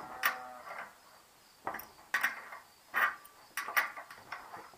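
An adjustable wrench clinks against the nuts and bolts on a patio heater's thin metal pole and base as the nuts are tightened. It makes a run of sharp metallic clinks, each ringing briefly.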